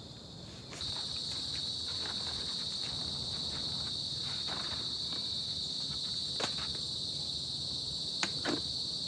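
Small electric air pump inflating an air mattress. It starts abruptly about a second in, runs with a steady high-pitched whine and hiss, and cuts off at the end, with a few light handling clicks.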